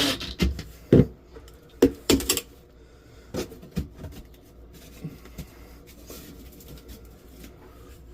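Several sharp knocks and clicks in the first four seconds, then faint handling noise: tools and materials being handled during ceiling drywall work.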